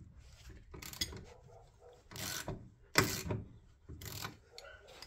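Socket ratchet clicking in four short bursts about a second apart, being worked on a rear suspension bolt.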